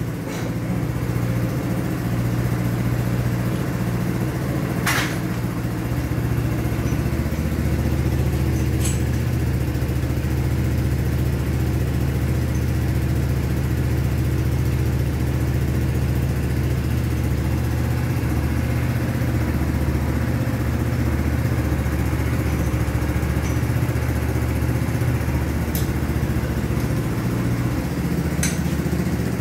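An engine idling steadily, with a few clicks over it.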